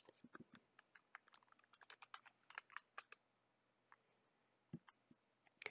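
Faint computer keyboard typing: a quick run of keystrokes for about three seconds, then a few separate clicks.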